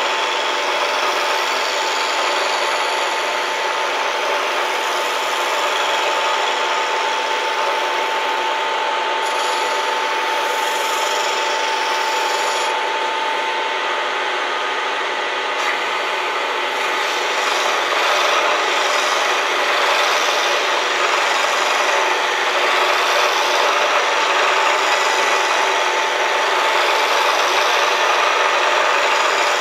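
Bridgeport milling machine cutting metal: a steady scraping with a steady whine over it, getting a little louder past the middle.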